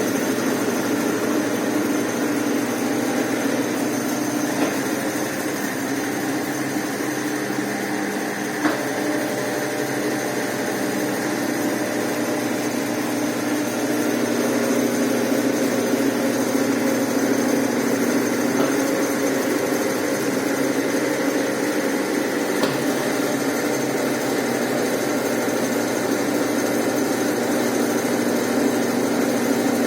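Brastemp Ative 11 kg BWL11AR washing machine running: a steady mechanical hum with several held tones, broken only by a faint tick about nine seconds in and another about two-thirds of the way through.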